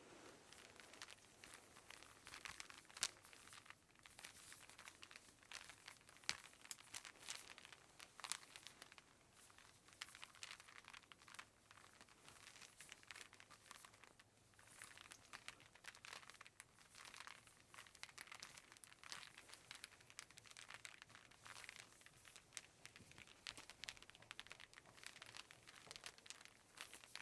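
Radio static: a faint crackling hiss thick with irregular pops and clicks, swelling and fading in waves every couple of seconds.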